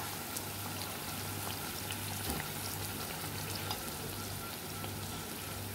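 Food frying in hot oil in a pan: a steady sizzle with scattered small crackles over a low steady hum.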